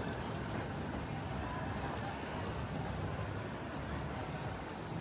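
Steady outdoor city ambience: an even low rumble and hiss with no single sound standing out.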